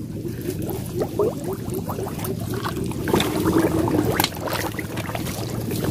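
Muddy water sloshing and splashing around a person wading through a shallow canal.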